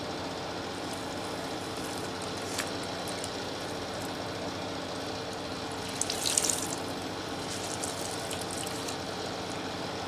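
Water dripping and splashing into a plastic tub as wet socks and underwear are wrung out by hand, with a short splash about six seconds in, over a steady background hum.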